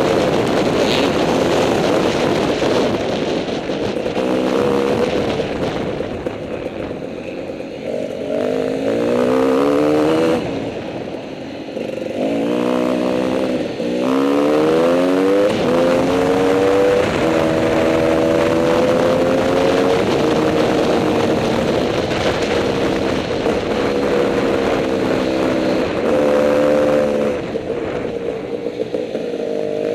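Several off-road motorcycle engines running and revving. Their pitch climbs a few times as bikes accelerate away from the start, with overlapping engines at different speeds.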